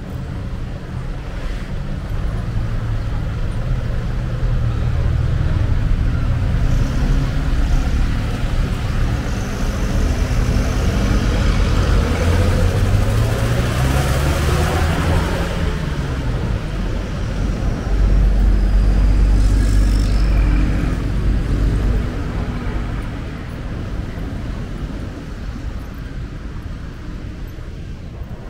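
Road traffic: motor vehicle engines running in a continuous low rumble. One engine revs up and eases off near the middle, and the rumble is heaviest about two-thirds of the way through.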